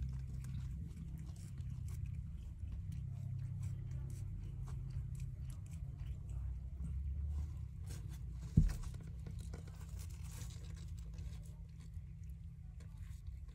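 A mother cat licking and grooming a newborn kitten: soft wet clicks and rustles over a low steady rumble, with one sharp thump about eight and a half seconds in.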